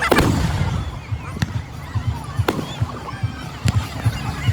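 Aerial fireworks going off: a loud bang right at the start that trails off into a rumble, then sharp cracks about once a second over a run of low popping thumps.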